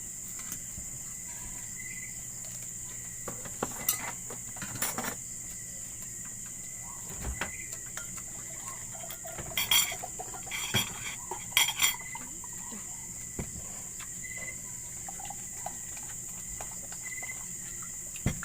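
Someone eating, with scattered clinks of a plate and utensils and a louder cluster of clatter about two-thirds of the way through. Crickets chirr steadily and high-pitched in the background.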